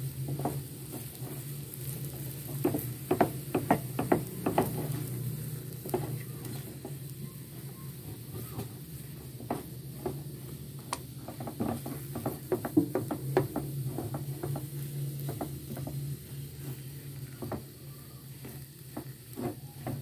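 Silicone spatula stirring and pressing mashed-potato filling in a non-stick frying pan: irregular soft scrapes and taps, busiest a few seconds in and again around the middle, over a steady low hum.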